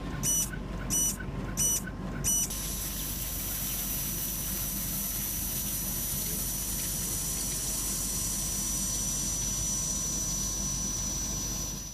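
An electronic alarm beeps four times, about two-thirds of a second apart, then sounds one continuous high tone for about nine seconds over a steady mechanical rumble and hiss. It all cuts off suddenly near the end.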